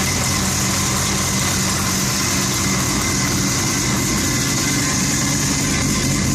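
Fuel-injected, bridgeported 13B Mazda rotary engine running steadily at idle.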